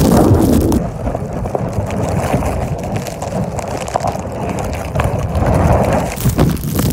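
Strong, gusty wind blowing straight onto the microphone, loud, with a louder surge near the start and another near the end.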